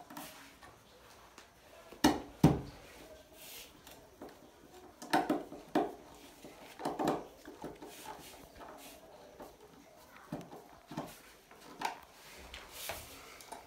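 Irregular knocks and clicks of a screwdriver and small parts being worked on a wooden table top while a switch box is fitted, the loudest two close together about two seconds in.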